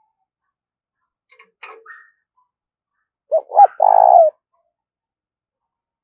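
Caged spotted dove cooing: about three seconds in it gives two short coos and then a longer, rolling one. A few faint chirps come before it.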